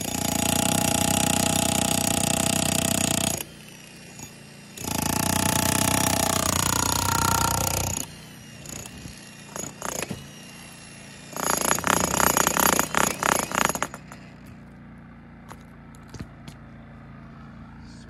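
Hilti TE 2000 AVR electric breaker hammer running in three bursts of a few seconds each, the last one choppier as it is started and stopped repeatedly. A lower steady hum, the WEN 3800-watt inverter generator powering it, carries on between and after the bursts.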